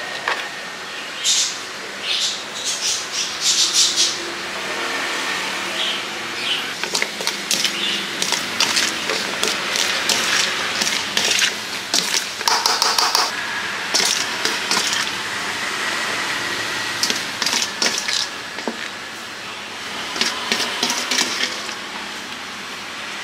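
A spoon clinking and scraping in a steel mixing bowl as pickled fruit is tossed in chilli sauce and spooned out, in irregular clusters of short clicks over steady background noise.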